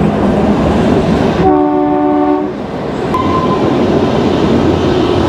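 A Kalka–Shimla toy train running along the track, heard from aboard a coach, with a steady rolling rumble. A little over a second in, the train's horn sounds once, a chord lasting about a second.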